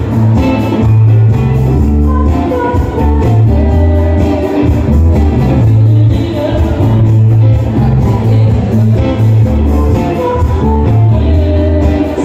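Live band playing rock music, with a prominent electric bass line, drums, keyboards and guitar, and a woman singing over it.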